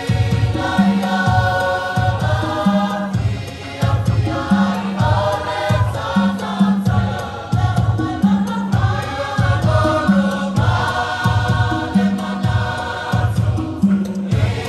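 A choir singing a Christmas carol in parts over a steady, repeating bass beat.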